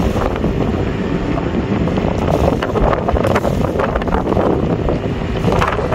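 Strong, gusty wind buffeting the microphone in a sailboat's cockpit: a loud, steady low rush that swells and eases with the gusts.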